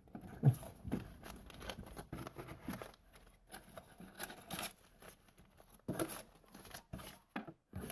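Tackle packaging being handled and opened: intermittent crinkling and rustling with scattered light clicks.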